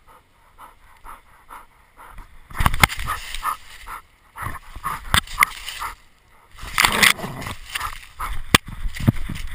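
American Staffordshire terrier panting in short, even breaths, about three a second, heard close from a camera strapped to the dog. From about two and a half seconds in, loud rustling and knocks break in as the dog moves through dry leaves and the camera mount jostles, with a sharp knock near the end.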